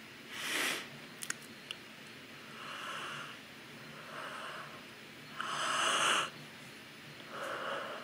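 A woman yawning: a run of breathy, drawn-out inhales and exhales through a wide-open mouth. The longest and loudest breath comes a little past halfway, and a few faint clicks sound between one and two seconds in.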